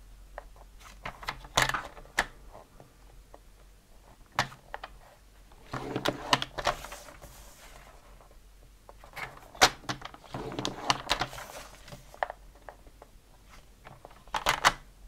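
A paper trimmer's scoring blade is drawn along white cardstock to score fold lines on all four sides, giving several short sliding scrapes. Sharp clicks and knocks come in between as the card is repositioned and turned in the trimmer.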